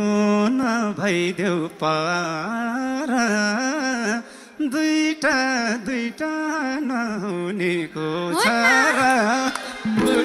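A man singing a Nepali dohori verse into a microphone: a single voice in short phrases with wavering, ornamented melody lines and brief breaks between them.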